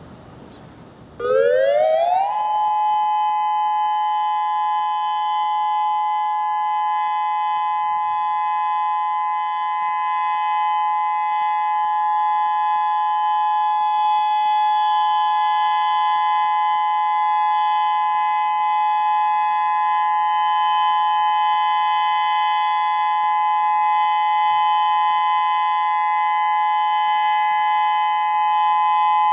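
A Federal Signal Modulator 6024 electronic warning siren starts about a second in. Its pitch rises quickly for about a second, then it holds a loud, steady two-note tone during a siren test.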